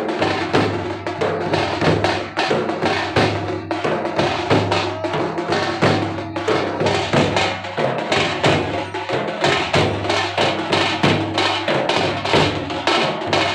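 Drum-led percussion music with a steady beat and sharp, clacking strokes over a sustained low drone.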